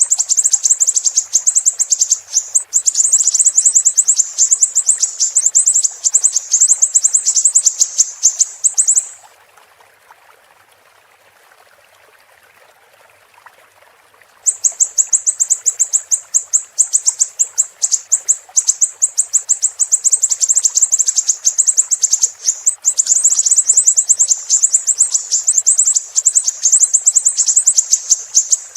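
Siri-siri bird singing: long runs of rapid, high-pitched, sharp chirping notes, many a second, stopping for about five seconds a third of the way in and then starting again. A faint steady hiss lies underneath.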